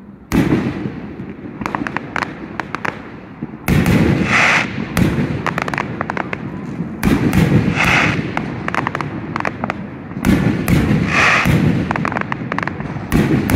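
Aerial fireworks shells bursting, a heavy boom about every three seconds, five in all. Each boom is followed by a spatter of crackling.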